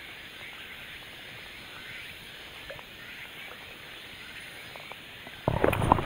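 Quiet open-water background with faint scattered chirps, then, about five and a half seconds in, a sudden loud splash as a large bass strikes a surface fly and the fly line is snatched up off the water on the hook set.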